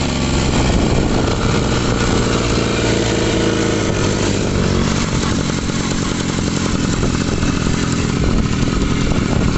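Daelim motorcycle engine running loudly and steadily, a fast, even firing note with no let-up.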